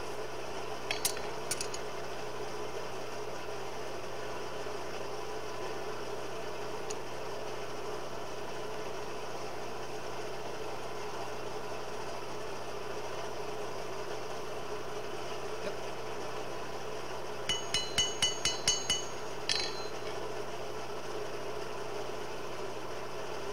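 Coal forge's blower running steadily. Light, ringing steel-on-steel clinks come twice about a second in and as a quick run of about seven near the end.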